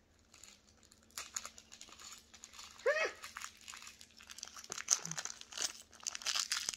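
Thin clear plastic jewelry bag crinkling in the fingers as it is handled and opened, in many short irregular crackles. A brief voice-like call that rises and falls in pitch comes about three seconds in.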